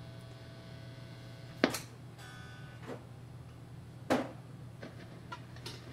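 Electric guitar notes picked one at a time and heard through a signal-tracer probe amplifier over a steady low mains hum, as the probe picks up the guitar signal inside a valve amp's preamp. Two notes about a second and a half and four seconds in are clearly the loudest, with a few fainter ones between and after.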